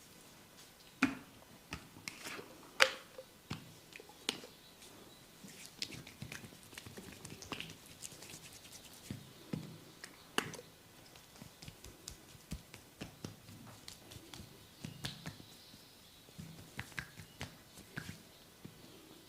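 Hands working in a head and body massage: irregular sharp clicks and taps on skin and hair, with soft rubbing between them, the loudest clicks about one and three seconds in.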